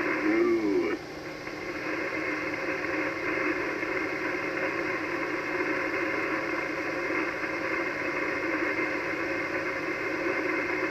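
Icom HF transceiver receiving the 80-metre band between transmissions: steady hiss and static through the radio's narrow voice filter, with no station talking. A brief wavering sound comes in the first second.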